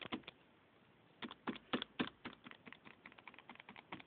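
Plastic keypad buttons on a fire alarm control panel being pressed in a quick, irregular run of clicks as a code is keyed in. No beep answers the presses: the panel has no power.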